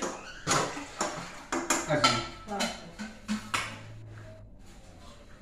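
A metal spoon clinking and scraping against a steel cooking pot while stirring: a quick run of clanks and scrapes for about four seconds, then it stops.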